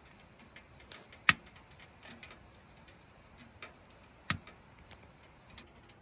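Wood-burning tent stove crackling: scattered small irregular clicks and pops, with two sharper pops about a second in and about four seconds in.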